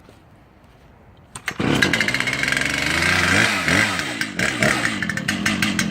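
Large chainsaw with a 36-inch bar starting up with its decompression valve pressed, catching about a second and a half in. It then runs with the revs rising and falling.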